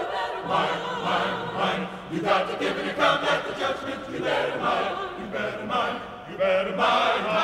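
A choir singing in sustained, phrased lines.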